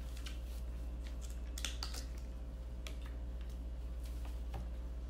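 Scattered light clicks and crinkles of thin plastic as the lid is pried off a small plastic sauce cup, the clearest cluster about a second and a half in, over a steady low hum.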